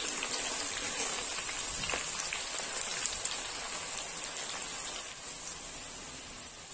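Batter-coated okra deep-frying in hot oil in a kadhai: a dense, steady sizzle and crackle that eases slightly toward the end, with a few light clicks as a ladle stirs.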